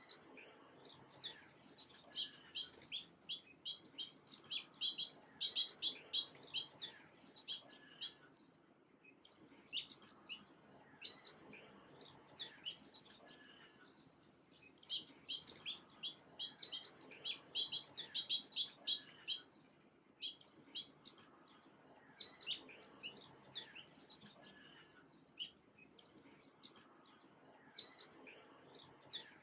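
Small birds chirping: quick runs of short, high chirps in two long bouts, the first from about a second and a half in to about eight seconds, the second from about fifteen to nineteen seconds, with scattered single chirps between them.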